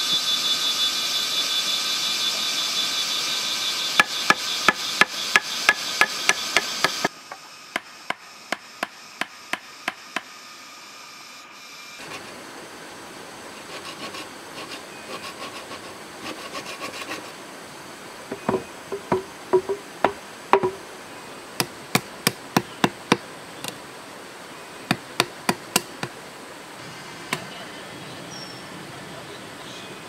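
Hammer striking a chisel to cut holes in a green bamboo tube: a run of quick, evenly spaced blows, about three a second, then sparser, irregular taps later on. A loud, steady high-pitched buzz runs under the first blows and cuts off suddenly about seven seconds in.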